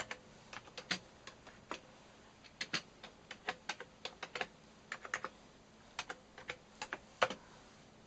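Keys typed on an MSX home computer's built-in keyboard: irregular keystroke clicks in short runs, with brief pauses between them.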